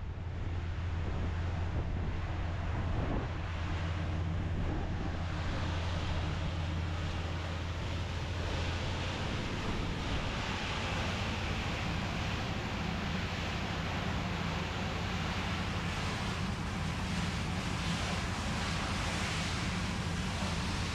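A vehicle engine idling steadily: a low, even hum under a constant hiss.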